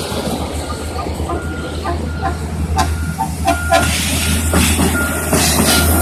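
Backup alarm beeping on railroad maintenance-of-way equipment, a short high beep about twice a second, over a low engine rumble with sharp metallic clicks and knocks.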